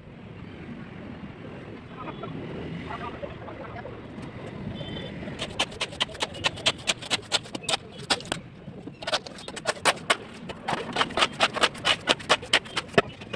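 A rapid series of sharp knocks, about five a second, starting about five seconds in and pausing briefly near the middle, over a low steady rumble.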